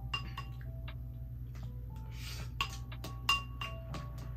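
A spoon clinking against a ceramic bowl as it stirs rice, a series of sharp clinks that each ring briefly; the loudest comes a little past the middle.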